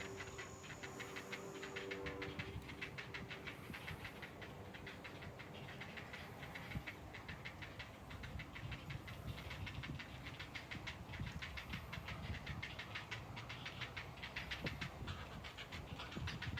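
A chorus of Ezo-harusemi cicadas (Terpnosia nigricosta) singing in rapid, evenly repeated pulses, with wind rumbling on the microphone.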